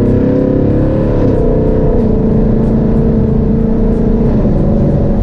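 2018 Mustang GT's 5.0 L Coyote V8 exhaust through a Steeda H-pipe, heard inside the cabin under light acceleration. Its pitch steps down about a second in and again near two seconds, as the automatic shifts up, then holds steady.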